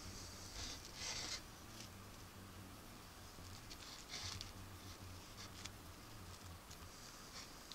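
Faint soft rustling and a few light clicks as hands fold and roll a flour tortilla on a plate, over a low hum.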